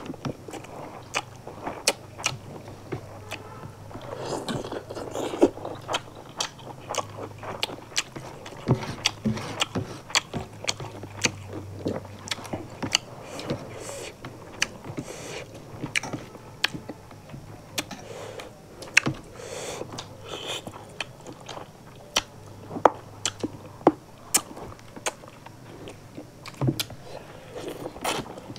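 Two people eating rice and fish curry with their hands: close chewing and wet mouth smacks, with sharp clicks many times a second and fingers working the rice on steel plates.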